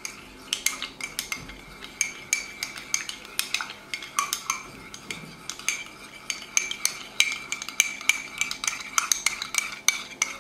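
Metal teaspoon stirring thinned tomato paste in a small ceramic cup, a rapid, uneven run of clinks as the spoon strikes the cup's sides.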